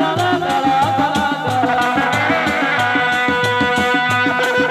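Sundanese dog-dog frame drums beaten in a fast, steady interlocking rhythm, with a held, reedy wind melody over them, typical of a terompet.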